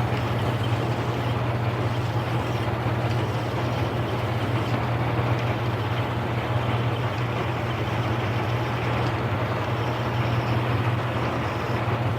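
Metal lathe running steadily, its motor giving a constant low hum.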